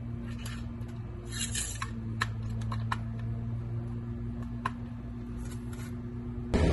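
Oil dipstick being handled and slid back into its tube: scattered light clicks and a few short scrapes over a steady low hum.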